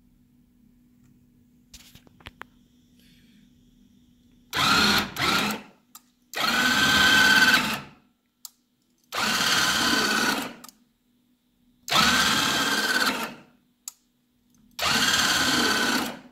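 Electric landing gear on a Honda Gold Wing motorcycle, its motors running in five separate runs of about a second and a half each, all with the same whine, deploying and retracting the gear. A faint steady hum lies between the runs.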